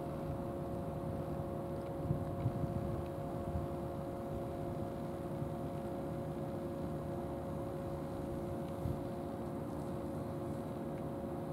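A motor or engine running steadily, a low even drone with a few fixed hum tones over it.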